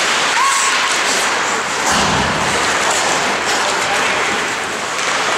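Ice hockey play in an arena: a steady rush of skate blades on ice and sticks, with a short shout just under a second in and a thud about two seconds in.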